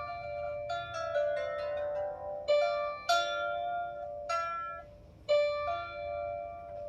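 Strings of a 16-string lyre harp plucked one at a time during a rough tuning, about seven separate notes ringing out. Between one and two and a half seconds in, a string's pitch slides as it is being brought up to tune.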